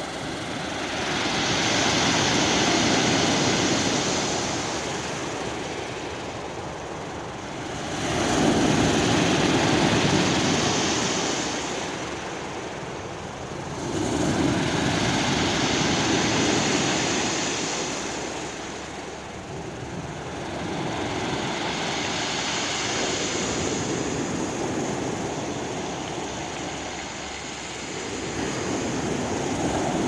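Sea waves breaking on a pebble beach, each swell rising and fading over several seconds, about five in a row.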